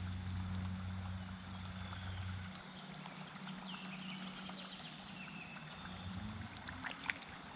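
Quiet creekside ambience: a low droning hum that drops away about two and a half seconds in, short high chirps every second or so, and a few faint clicks near the end.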